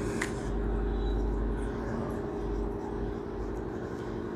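Steady mechanical hum, with several even tones held constant over a low rumble, and a short click just after the start.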